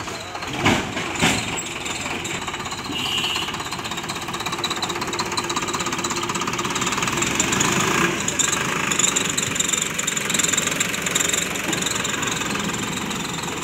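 Diesel tractor engine running with a steady knocking clatter, while its hitched trolley is tipped up to dump its load. Two sharp knocks sound about a second in.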